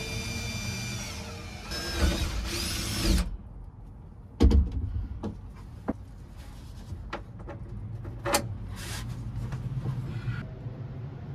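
Cordless drill running in short bursts with a whining motor that speeds up and then stops sharply after about three seconds, followed by scattered knocks and clicks of handling.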